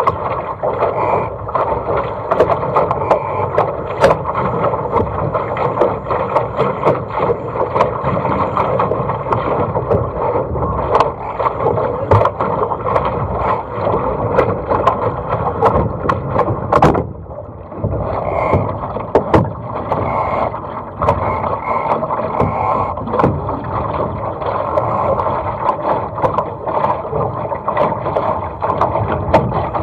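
Water rushing and splashing along a Laser dinghy's hull as it sails through chop, steady throughout, with frequent sharp ticks of spray and hull slaps. The rush briefly drops away for about a second a little past halfway.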